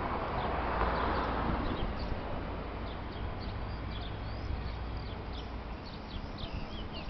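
Steady low rumble of a Renfe class 334 diesel locomotive slowly propelling two coaches in reverse, with a rushing noise that swells and fades in the first two seconds. Small birds chirp over it, more often near the end.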